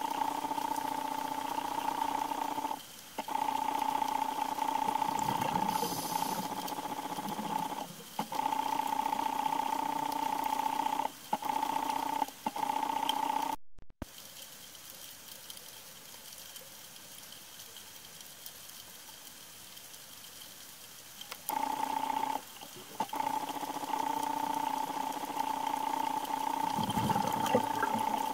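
Underwater recording with a steady mechanical hum in two level tones. The hum cuts out briefly several times and is absent for several seconds midway, leaving only faint water hiss. A couple of low rumbles sound along with it.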